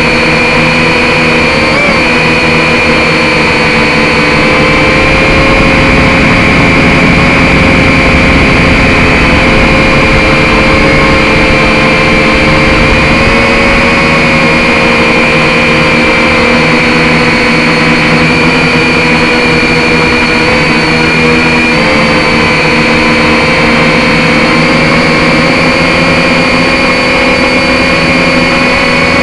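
Quadcopter drone's motors and propellers, a steady high whine with a buzz underneath, dipping slightly in pitch a couple of times as the speed changes.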